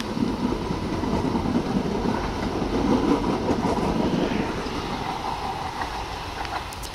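Tyne and Wear Metrocar electric train passing close along the platform: a rumble of wheels on the rails with a steady hum above it, loudest about three seconds in, then fading as the train moves away.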